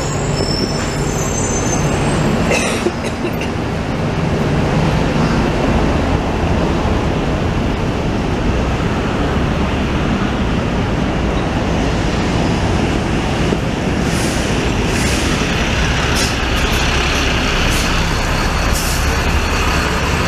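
Loud, steady rumble of heavy vehicle noise on a city street, with a few sharp high squeaks or clicks about three seconds in and several more toward the end.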